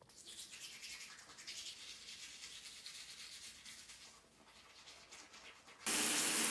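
Toothbrush scrubbing teeth in quick back-and-forth strokes. Near the end a water tap is turned on and runs with a loud steady hiss.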